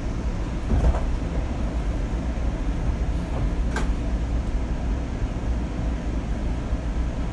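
Seattle Link light rail train running, heard from inside the car: a steady low rumble of the train on the track, with a short knock about a second in and a sharp click near four seconds in.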